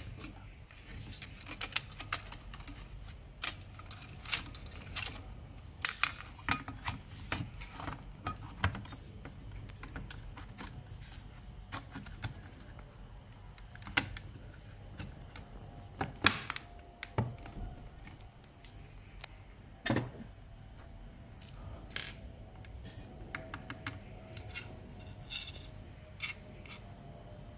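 Irregular clicks, taps and light metal clatter from hands working on an opened car radio head unit, handling its ribbon-cable connectors and sheet-metal chassis, with a few sharper knocks.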